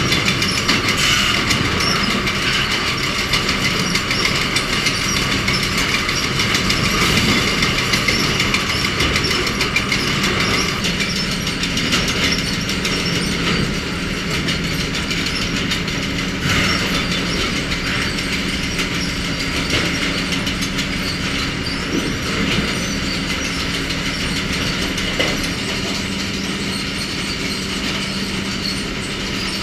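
Sawmill log-handling machinery running: chain conveyors and log feeders giving a steady mechanical clatter over a constant low hum, with a few sharper knocks as logs bump along. The din changes character about a third of the way in.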